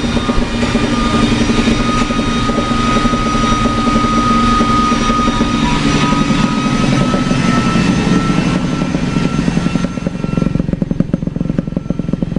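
Yamaha RD 135's single-cylinder two-stroke engine running through an aftermarket Prandini/Peloso exhaust, a steady buzzing note with a faint rising whistle. About halfway through the engine note drops lower and turns choppy, and it gets quieter near the end.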